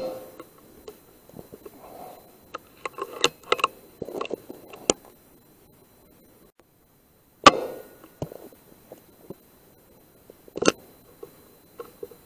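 Air Arms S510 .177 pre-charged pneumatic air rifle firing, one loud sharp crack about halfway through, followed by a smaller sharp knock near the end. Light clicks and taps come before the shot.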